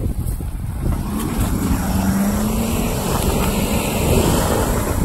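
Ford F-250 pickup's engine running close by in the mud, a low drone that rises slightly in pitch about two seconds in. Wind buffets the microphone and branches brush past it.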